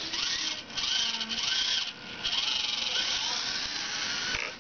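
Losi micro RC rock crawler's small electric motor and gearbox whining as it is driven in throttle bursts, the whine rising in pitch with each burst, with two short let-offs in the first two seconds.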